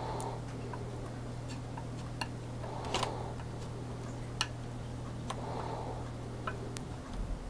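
Metal mixing stick stirring two-part epoxy in a small measuring cup, giving irregular light ticks and clicks as it knocks and scrapes the cup. A steady low hum runs underneath and cuts off near the end.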